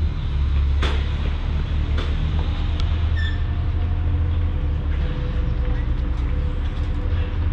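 Low, steady rumble of a moving vehicle, with a short high tone about three seconds in.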